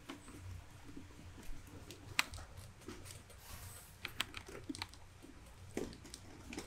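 Hands handling a glossy plastic motorcycle helmet shell while wiping it with a microfiber cloth: light, irregular clicks and taps, the sharpest about two seconds in, over a faint low hum.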